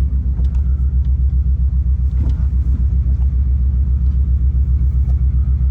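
Subaru Legacy engine running with a loud, low, evenly pulsing exhaust rumble; the car has a known exhaust problem.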